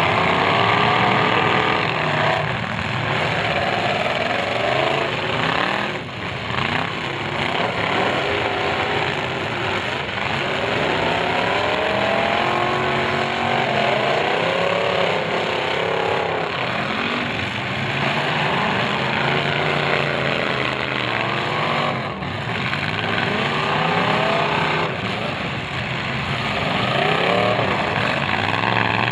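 Several demolition derby cars' engines revving hard and falling back, many at once and overlapping.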